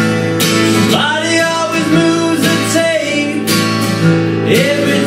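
Twelve-string acoustic guitar strummed in a steady rhythm, with a harmonica melody that comes in about a second in, bending into its notes.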